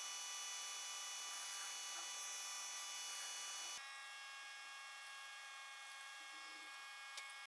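Metal lathe running with its chuck spinning: a steady whine of several high tones from the motor and drive. The tones shift a little under four seconds in, and the sound cuts off suddenly near the end.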